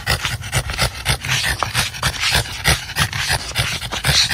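A dog panting in quick, uneven breaths, several a second.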